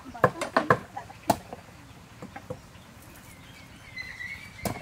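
Kitchen knives striking thick wooden chopping blocks: a quick, irregular run of sharp chops in the first second and a half, a few lighter taps after, and another sharp chop near the end.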